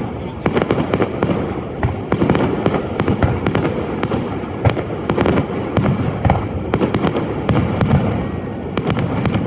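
Fireworks display: a rapid, continuous barrage of overlapping booming bursts and crackles, many shells going off in quick succession.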